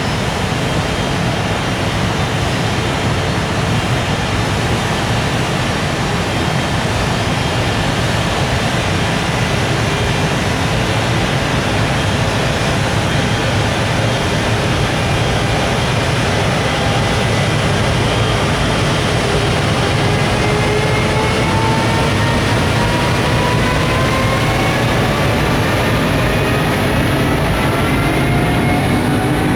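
Container freight train pulling away, a loud steady running rumble, with a faint whine that rises slowly in pitch as it speeds up over the last ten seconds or so.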